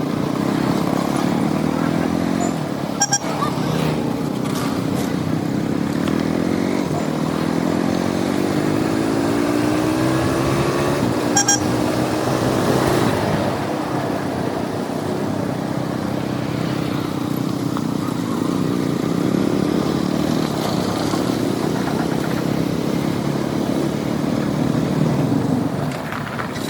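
KTM 200 Duke's single-cylinder engine running while riding in traffic, its pitch climbing as the bike accelerates from about six to eleven seconds in, over a steady rushing noise. Two brief sharp sounds stand out, about three and eleven seconds in.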